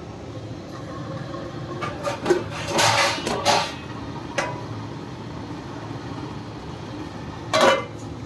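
Steel kitchen utensils and lids clattering and knocking a few times, loudest about three seconds in and again near the end, over a steady low hum.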